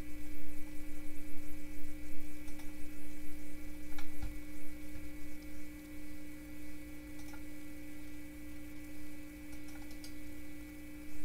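Steady electrical hum with a few faint clicks, in keeping with a computer mouse being clicked through menus.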